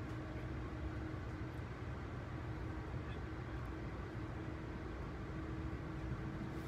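Ride noise inside an Amfleet I passenger coach running at speed: a steady low rumble of wheels on rail with a faint constant hum.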